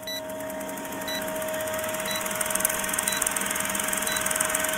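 Old film-projector countdown sound effect: a fast, steady mechanical clatter with a hum under it, and a short high beep once a second, five times, as the leader counts down.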